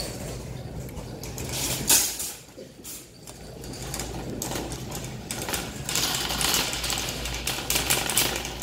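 Metal wire shopping cart being pulled from a nested row and pushed over a tiled floor, its basket and wheels rattling, with a sharp clack about two seconds in.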